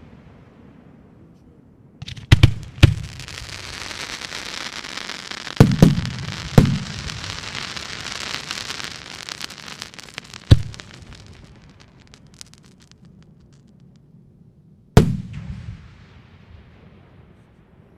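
Fireworks going off: a quick cluster of sharp bangs about two seconds in, then a long crackling hiss broken by loud bangs around six and ten seconds. A single heavy bang near the end rumbles away as it fades.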